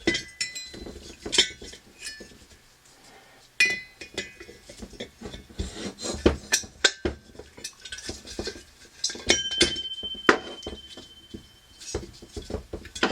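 Hand tools clinking and knocking against the metal parts of a diesel parking heater during disassembly, working at the glow plug: irregular sharp metallic clinks, some ringing briefly. One ring holds for about two seconds about two-thirds of the way through.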